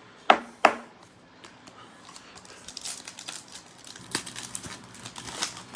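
Two sharp knocks, then the crinkling and tearing of a football trading-card pack's plastic wrapper as it is opened.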